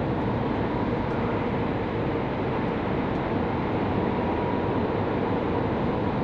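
Steady engine and road noise heard inside the cab of a Hino tractor unit cruising at highway speed, with a faint steady hum running through it.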